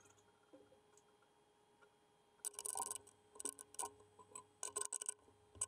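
Short, irregular clicks and light clinks of small tooling handled by hand, as the CNC mill's touch probe is removed and a 3 mm cutter fitted. The clicks start about halfway through, over a faint steady hum.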